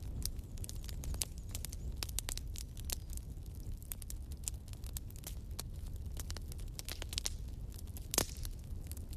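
Wood fire crackling in a fireplace: irregular small snaps and pops over a steady low rumble, with one louder pop about eight seconds in.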